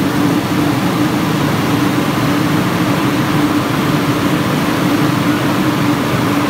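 Steady, loud mechanical drone with a constant hum, like a running engine.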